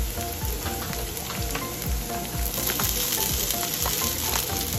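Peas, carrots and onions sizzling in oil in a nonstick frying pan. A little over halfway in, the sizzle turns brighter as precooked brown rice is poured onto the hot vegetables.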